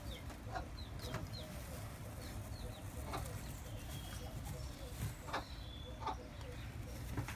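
Wyandotte hen sitting on a clutch of eggs, giving short, soft clucks at irregular intervals, with faint high chirps among them.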